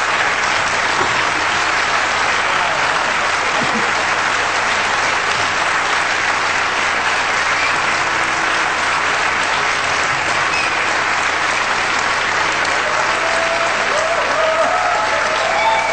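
Audience applauding steadily, with voices calling out over the clapping near the end.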